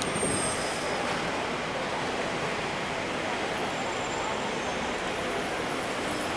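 Double-decker electric street tram approaching slowly along its street track: a steady rumble of steel wheels on rail, mixed with street traffic noise.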